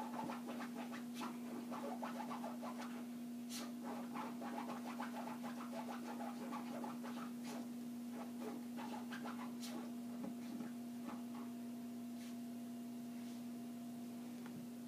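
Silky Terriers playing, their claws scratching and scrabbling in a busy run of small scratches and light clicks that thins out after the middle. A steady low hum runs underneath.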